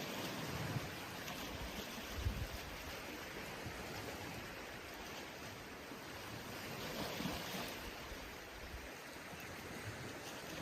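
Steady rushing outdoor ambience, like running water, with a few soft low thumps.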